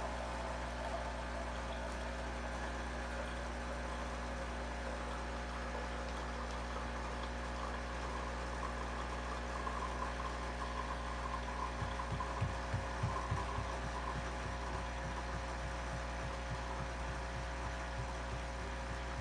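Dolce Gusto capsule coffee machine brewing: its pump runs with a steady hum, and about two-thirds of the way through a rhythmic throbbing of about five pulses a second sets in, strongest briefly and then fading.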